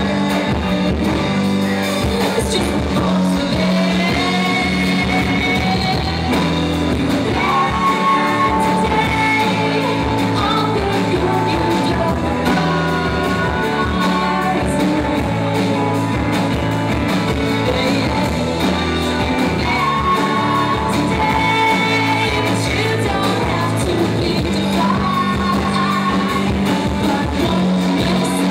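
Live band playing a song: a woman singing over acoustic guitar, electric guitar and bass, steady and loud throughout.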